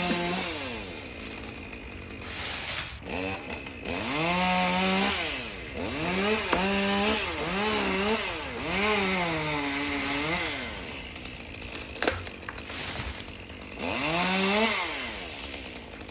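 Chainsaw cutting the face notch into a pine's trunk for topping. It is revved in several bursts, its pitch climbing and falling with each, and there is a single sharp click about twelve seconds in.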